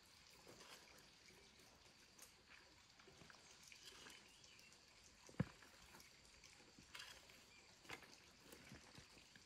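Near silence: faint outdoor ambience with scattered small clicks and one sharp knock about five and a half seconds in.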